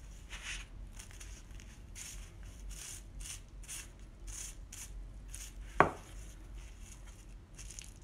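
Paintbrush tapping paint onto a sheet of bubble wrap: a run of short, scratchy plastic dabs, about two or three a second. One sharp click near six seconds in.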